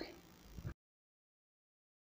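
Near silence: faint room tone that cuts off completely less than a second in, leaving dead silence; the hand mixer is not heard.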